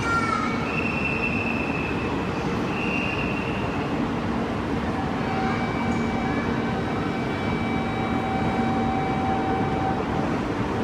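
A train at a station platform: a steady rumble throughout, with two short high tones in the first few seconds and a steady electric whine from about five seconds in until near the end.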